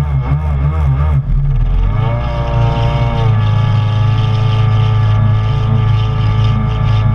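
Two-stroke engine of a stand-up Kawasaki Jet Ski running at speed. Its pitch wavers at first, climbs about two seconds in and then holds steady, with water rushing past the hull.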